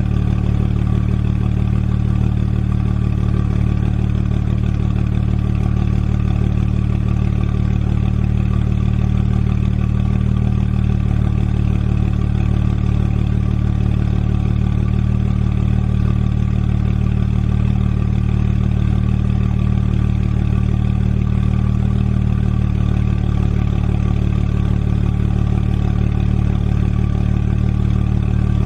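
An engine running steadily at one constant speed, a low even drone.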